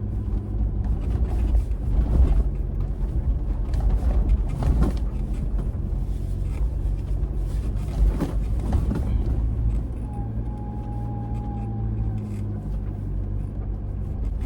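Toyota Fortuner 4x4 driving slowly over a rough dirt track: steady engine hum and low rumble, with scattered knocks and bumps from the uneven ground. A thin steady whine sounds for about two seconds around ten seconds in.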